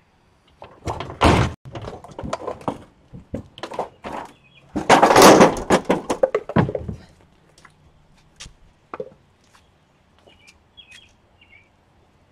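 Dishwasher parts being pried apart and handled: irregular thunks and knocks of sheet metal and plastic, with a louder, longer clattering stretch about five seconds in, then only a few light clicks.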